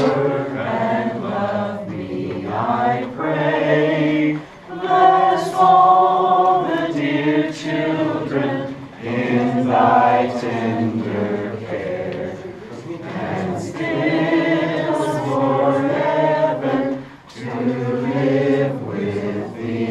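A small group of men and women singing a Christmas carol together, unaccompanied, in long held phrases with brief pauses for breath between them.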